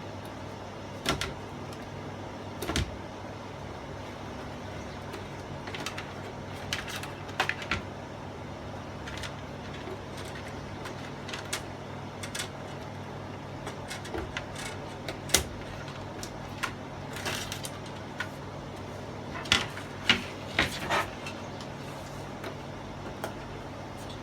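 Scattered clicks, knocks and rattles of hands and tools working on the plastic back cover of a 32-inch LED TV, over a steady low hum.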